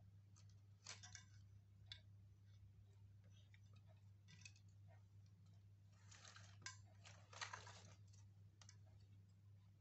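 Near silence: a steady low hum with a few faint clicks, and a brief soft rustle of handling about six to eight seconds in.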